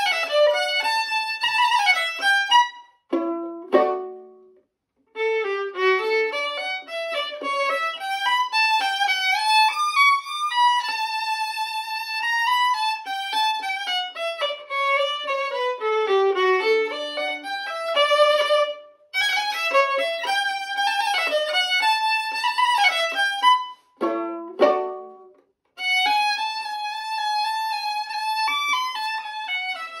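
Solo violin played with the bow: a flowing melody with slides and runs, broken twice by short low notes that die away, each followed by a brief pause.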